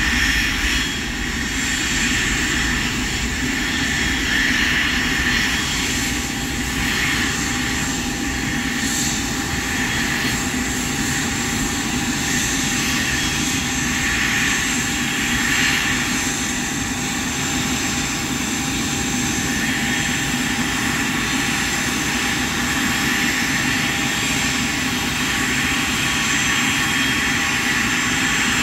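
Jet aircraft engines running steadily at low power: a high steady whine of several tones over a broad rush, with a low rumble beneath.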